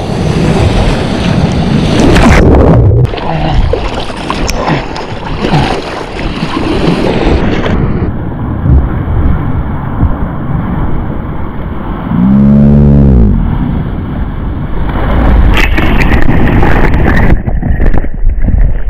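Seawater rushing and splashing against a waterproof action camera on a surfboard, with wind buffeting the microphone. A short voice call, rising and falling in pitch, sounds about two-thirds of the way through.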